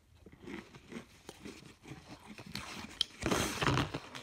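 A person chewing and crunching an Oreo cookie close to the microphone, with a louder stretch of chewing and a low hum of the voice a little after three seconds in.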